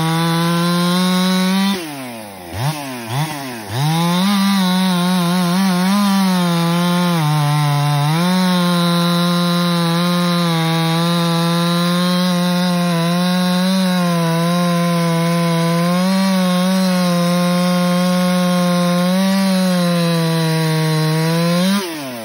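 Ported Husqvarna 372XP two-stroke chainsaw (Meteor cylinder, 24-inch bar, full-chisel chain) running at full throttle, loaded in a cut through a large log. About two seconds in the throttle drops off and the saw is blipped twice before it goes back into the wood. It then holds a steady, slightly wavering pitch until, near the end, it falls away as the cut finishes.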